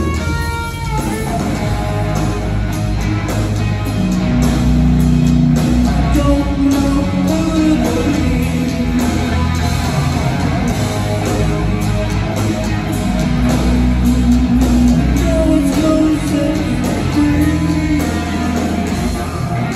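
Hard rock band playing live: distorted electric guitars, bass and drums through a loud PA, with a man singing.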